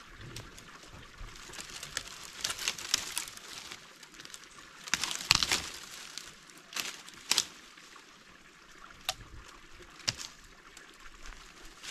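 Dry dead branches being snapped by hand, with dry leaves and twigs crackling underfoot. There is one loud crack about five seconds in, and a few sharper snaps follow.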